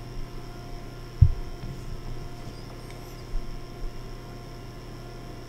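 Steady electrical hum from the recording setup, with one sharp low thump about a second in and a couple of fainter low bumps later.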